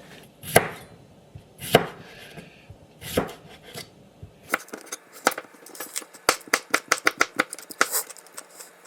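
Knife chopping on a cutting board: a few separate cuts, then from about halfway a quick, even run of chops, several a second.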